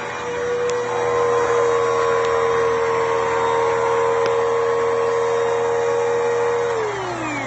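Hoover Dimension 900 canister vacuum cleaner running, with a loud, steady whine. Near the end the whine falls in pitch as the motor winds down.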